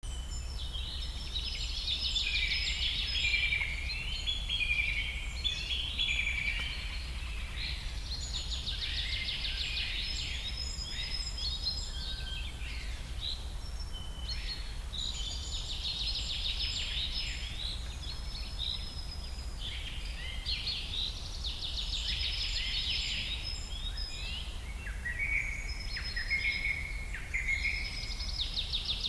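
A songbird singing in repeated bouts about every six seconds, each a fast high trill mixed with chirping notes, over a steady low hum.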